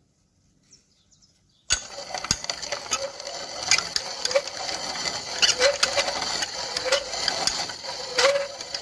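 Steel tool bit cutting a turning vise screw on a makeshift lathe rig: a scraping, clicking cut with a short squeal repeating about every second and a quarter. It starts about two seconds in, after near silence.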